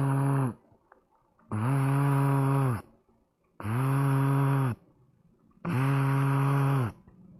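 A person's vocal imitation of a cellphone vibrating with an incoming call: a low, steady buzz held for about a second at a time, repeated about every two seconds, each one dropping in pitch as it stops. Four buzzes, the first ending about half a second in.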